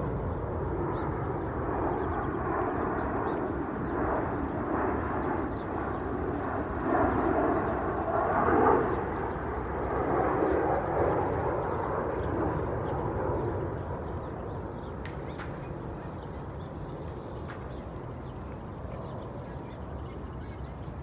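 An airplane passing overhead: a broad rushing sound that swells, is loudest about nine seconds in, and dies away by about fourteen seconds, leaving a low steady background.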